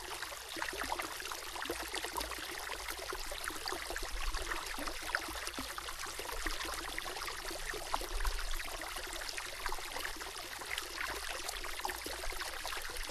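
Flowing stream, water babbling and trickling steadily, with a low rumble underneath.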